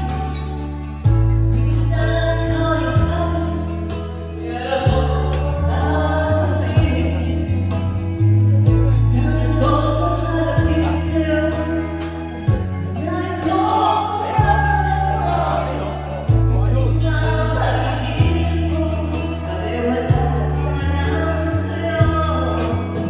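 Karaoke backing music playing loudly: long held bass notes that change every second or two, with singing over them.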